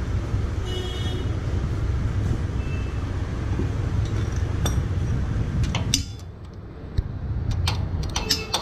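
Scattered metallic clinks and taps as the nut and starter gear are fitted by hand on a Royal Enfield's open engine case, more of them in the second half. Under them runs a steady low hum that fades out about six seconds in.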